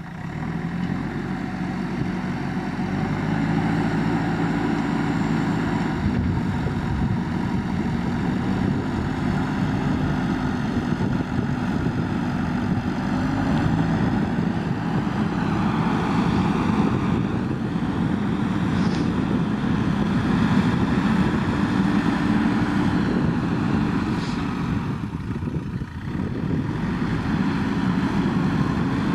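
JCB backhoe loader's diesel engine running under load as the machine digs and levels mud. The engine note rises and falls several times as it revs with the work.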